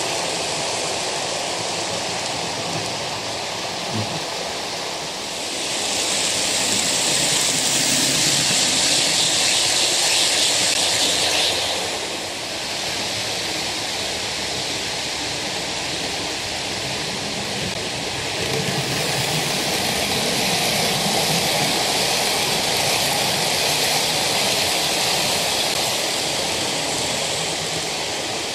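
OO gauge model passenger trains running on the layout, wheels rolling on the track with a steady rushing noise and a faint motor hum. The noise grows louder and hissier from about six to eleven seconds in, and again from about nineteen seconds on, as trains pass closer.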